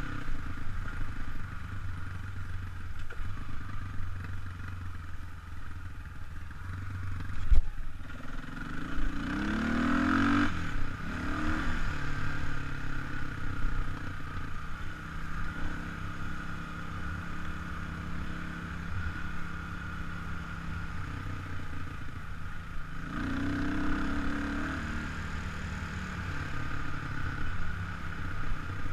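Kawasaki KLX300 dirt bike's single-cylinder four-stroke engine running steadily at trail speed, with the revs rising twice, about a third of the way in and again near the end. A single sharp knock comes just before the first rev-up.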